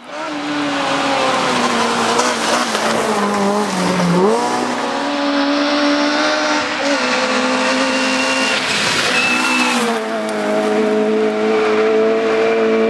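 Rally car engines running at high revs, the pitch dropping and climbing again several times as the drivers lift and change gear.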